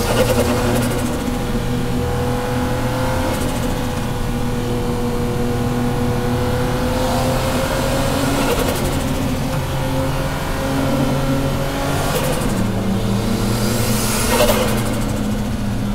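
Straight-six engine of a Toyota JZX drift car heard from inside the cabin, running steadily on part throttle with its note slowly rising, then dropping about three-quarters of the way through at a gear change. A few short hissing bursts sound over it.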